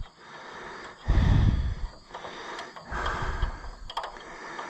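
Rummaging through a box of parts: rustling and a few light clicks, with a short breathy grunt from a man about a second in.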